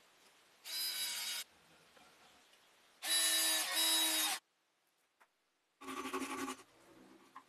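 Cordless drill motor whining in three short runs as it bores into plywood, the longest lasting about a second and a half, with quiet between.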